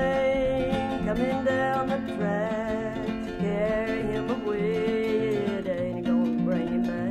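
Acoustic guitar playing an old-time tune picked thumb-and-finger style, with the thumb on a stepping bass line and the forefinger picking a sliding melody above it.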